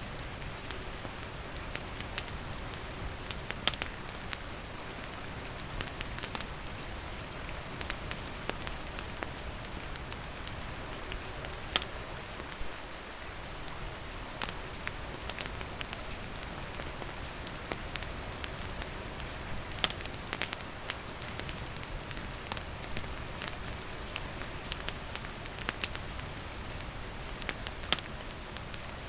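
Steady rain falling and pattering on surfaces, with a wood campfire crackling and giving off frequent sharp pops.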